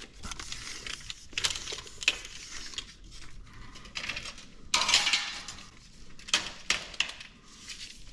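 Irregular clinks, rattles and scrapes of hand tools being handled at a window frame, with a longer, louder scrape about five seconds in.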